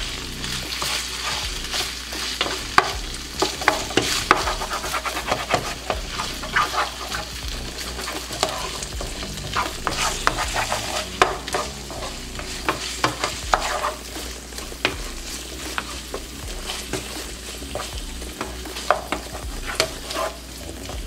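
Marinated beef strips sizzling in a frying pan over medium heat, stirred with a wooden spatula that scrapes and knocks against the pan many times.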